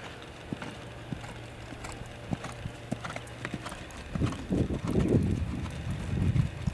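Hoofbeats of a horse trotting on a sand arena: faint at first, then louder, dull thuds in an even two-beat rhythm from about four seconds in.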